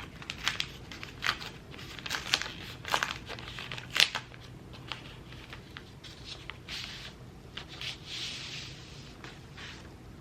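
Small hard plastic parts clicking and tapping as keyboard pieces are handled, many sharp irregular clicks in the first few seconds, then a few bursts of crinkling rustle, like plastic packaging, later on.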